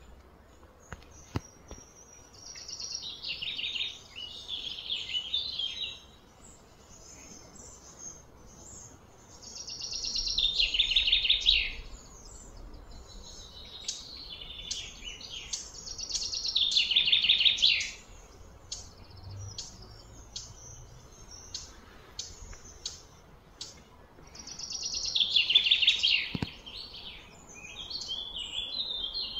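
A bird singing in repeated bouts, each a few seconds of fast, falling high notes, coming back about every six to eight seconds. Short clicks sound between the bouts.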